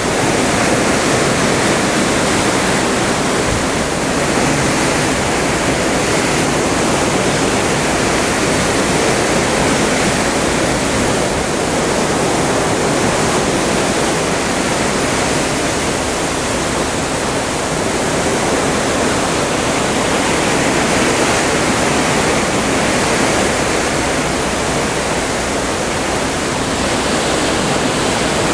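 Atlantic sea water rushing past the hull of a cruise ship under way: a steady rush that swells and eases gently every several seconds.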